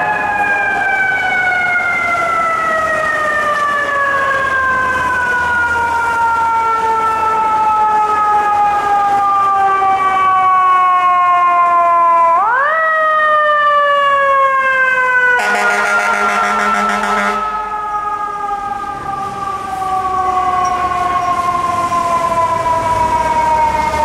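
Federal Signal EQ2B electromechanical siren on a fire truck, sounding wail. Its pitch slowly winds down, is spun back up quickly about halfway through, then winds down again. A short air horn blast of about two seconds sounds over it about two-thirds of the way in.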